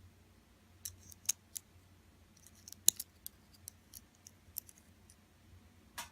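Scattered small, sharp metal clicks and taps of padlock pins, springs and tools being handled while the lock cylinder is taken apart. The loudest click comes about three seconds in.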